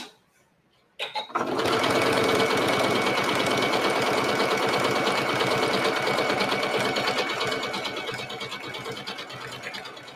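Sewing machine stitching through overlapping leather scraps. After a couple of clicks about a second in, it runs at a steady fast pace of rapid even needle strokes, then gets quieter over the last few seconds.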